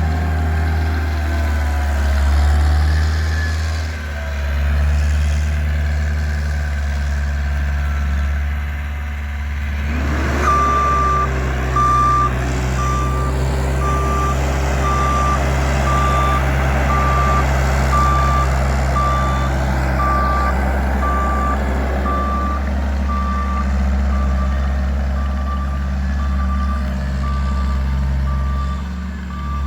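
Bobcat construction machine's diesel engine running steadily. About ten seconds in it revs up and holds for several seconds, and its reversing alarm starts beeping about once a second.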